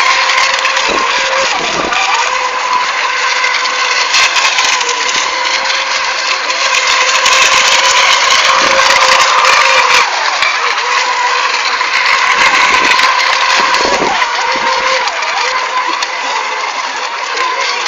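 Radio-controlled racing boats running flat out, a steady loud drone of their motors over the whole stretch.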